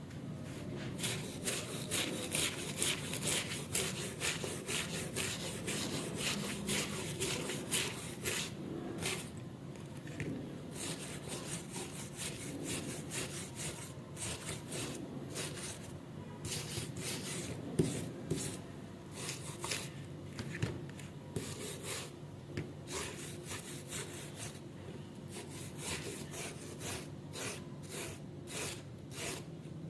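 Abrasive rubbing on the rusted steel of garden shears by hand: repeated back-and-forth strokes, a couple a second, with short pauses, as the rust is worked off.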